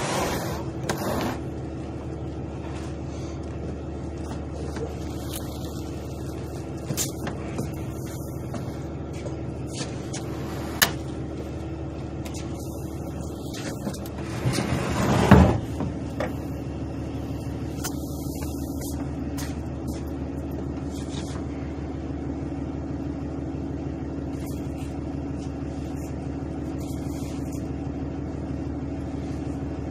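A motor vehicle's engine idling steadily with an even hum. There is a sharp knock about eleven seconds in, and a louder rush of noise swells and fades around fifteen seconds.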